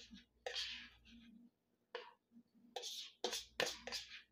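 Metal fork scraping and tapping against a ceramic mixing bowl in a run of short, irregular strokes as a wet cracker mixture is pushed out of it.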